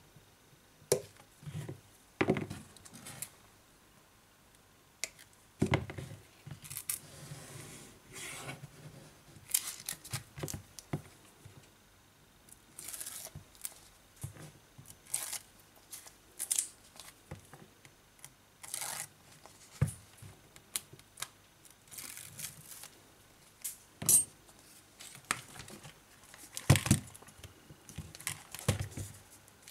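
Double-sided adhesive tape being pulled off its roll and snipped with small cutters: irregular short rips and snips, with occasional sharp clicks.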